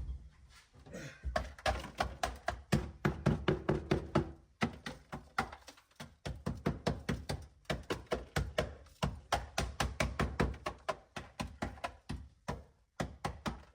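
Dry ice pellets on a car's sheet-metal floor pan coated with sound deadener, giving a rapid, irregular run of sharp clicks and knocks, several a second.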